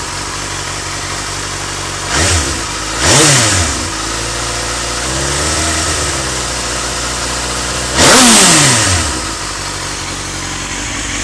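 Suzuki GSX-R 1000's inline-four engine idling and being revved in place: a short blip about two seconds in, a sharper one a second later, a slow gentle rise in the middle, and a big rev near the end, the loudest, whose pitch falls back to idle.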